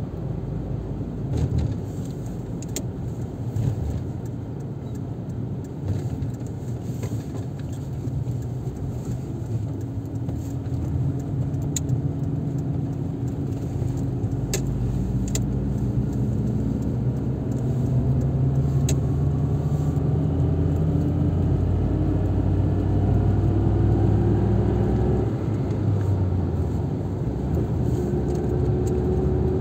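Car being driven on a highway: steady engine and tyre noise, with the engine note climbing slowly through the second half as the car speeds up. A few faint clicks are heard along the way.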